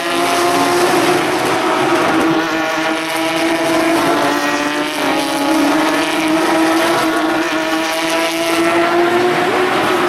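A pack of Porsche 911 GT3 Cup race cars with flat-six engines at high revs, running past and pulling away, several engine notes overlapping and climbing and falling in pitch as they accelerate and change gear.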